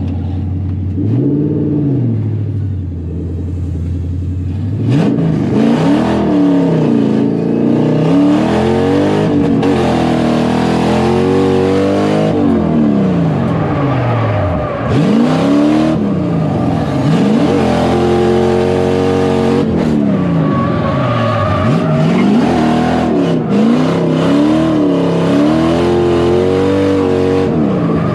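Drift car engine running steadily with one short blip about a second in. From about five seconds in it revs hard up and down again and again, the pitch climbing and dropping every second or two as the car is driven through a drift run.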